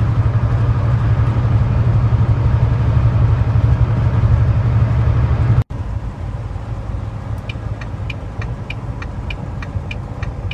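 Steady low engine and road drone of a semi truck heard inside the cab, which cuts off abruptly about halfway through to a quieter drone. In the second part the turn signal clicks steadily, about three ticks a second.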